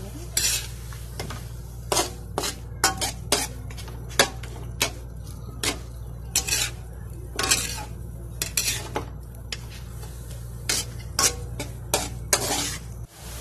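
Metal spatula scraping and clanking against a metal wok in irregular strokes as chicken pieces are stirred, over a faint sizzle.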